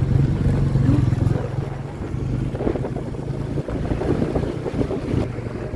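A two-wheeler's engine runs steadily as it is ridden along, with wind buffeting the microphone.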